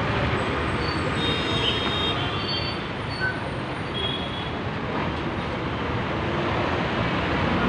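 Street traffic dominated by a bus engine running as the bus pulls away, a steady rumble. A few brief high-pitched tones sound a second or two in.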